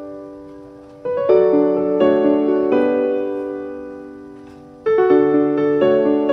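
Background piano music: slow chords that ring out and fade between strikes, with fresh chords about a second in and again near the end.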